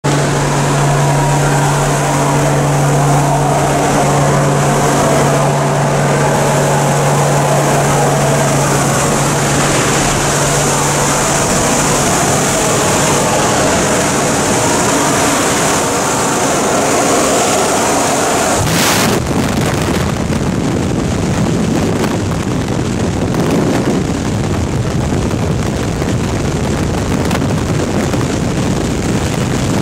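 Jump plane's engine running steadily under loud wind rushing through the open door. About nineteen seconds in the sound changes abruptly to the rumbling rush of freefall wind over the microphone.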